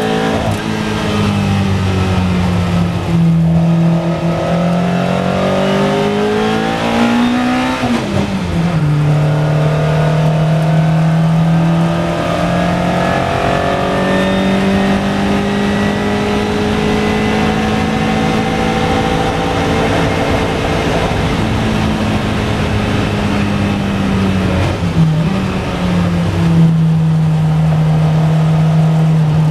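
Onboard sound of a Lola T292 sports-prototype racing car's engine under load on track. The engine note climbs, drops sharply with an upshift about eight seconds in, and climbs slowly again. It then falls away as the car slows, with a brief dip and rise on a downshift near the end.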